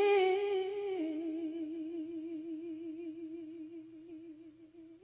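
A woman's voice holding a sung note with a wide vibrato, unaccompanied. It drops a step about a second in and fades away near the end.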